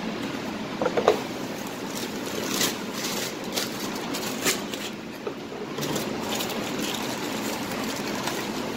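Aluminium foil crinkling and rustling several times as it is handled and folded by hand. A steady fan hum from the commercial kitchen's ventilation runs underneath, and there is a brief clunk about a second in.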